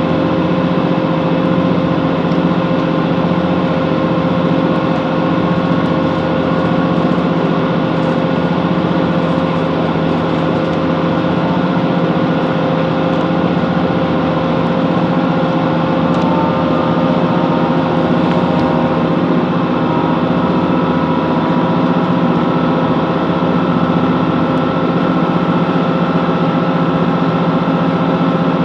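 Class 165 Networker Turbo diesel multiple unit under way: the diesel engine runs steadily under a constant hum of running noise, heard from inside the passenger saloon.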